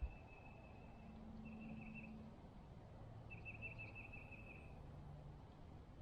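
Faint high-pitched bird calls: a thin held note that twice breaks into quick trills, over quiet outdoor background with a faint low hum.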